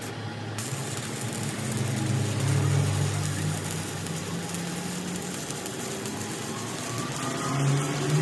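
A motor running steadily, its pitch and level rising about two seconds in and again near the end.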